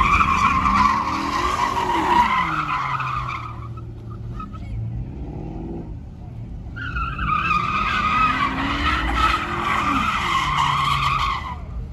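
A car's tyres squealing in a long skid while its engine revs up and down. The squeal fades about three and a half seconds in and comes back about seven seconds in for several more seconds.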